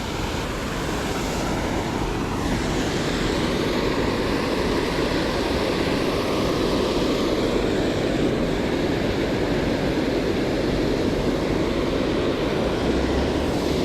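Steady rushing roar of a creek waterfall, holding level after a slight swell in the first couple of seconds.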